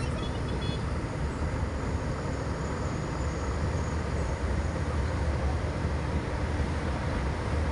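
Car driving slowly, a steady low rumble of engine and road noise heard from inside the car.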